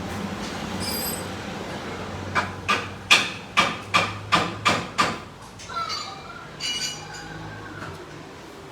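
A hammer striking metal about eight times in quick succession, some three blows a second, each blow ringing briefly, over a steady low hum.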